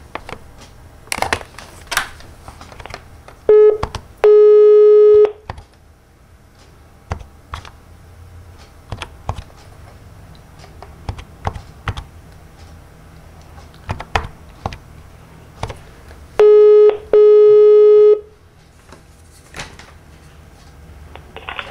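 A call being placed on a corded desk telephone: scattered clicks from the handset and buttons, and twice a pair of low steady line tones heard through the phone line, a short beep followed by one about a second long, the pairs some thirteen seconds apart.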